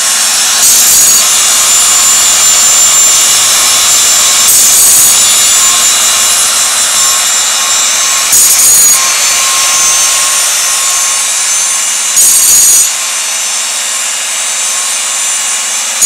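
Homemade automatic bandsaw blade sharpener running: the motor and grinding wheel make a steady hum and hiss. About every four seconds there is a short, harsher grinding burst as the wheel grinds a tooth of the band and throws sparks.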